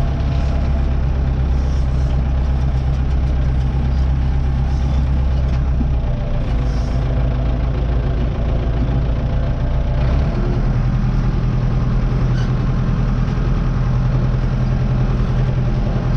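Tractor engine running steadily at low revs. Its low drone shifts in pitch about six seconds in and again about ten seconds in.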